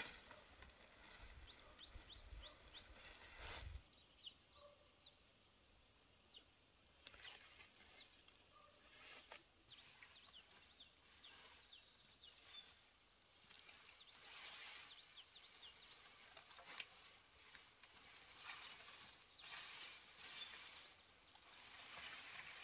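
Faint rustling and crackling of dry palm leaves being sorted and gathered by hand, with a low rumble that stops about four seconds in. A few short high bird chirps come through near the middle and near the end.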